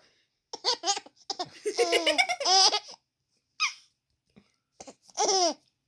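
Baby laughing in bursts at her sister's sneezing: a run of quick laughs for the first few seconds, a short squeal in the middle, and a longer laugh falling in pitch near the end.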